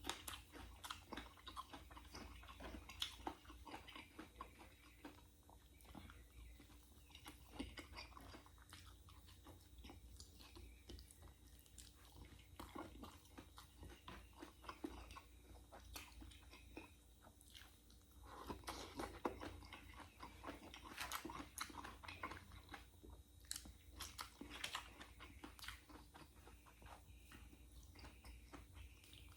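Close-miked chewing and crunching of crisp fried fish: a steady run of small irregular crackles and mouth clicks, busier in the second half.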